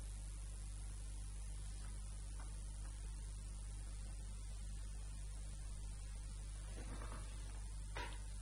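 Steady electrical mains hum with a background hiss from the recording chain, with a faint brief sound or two near the end.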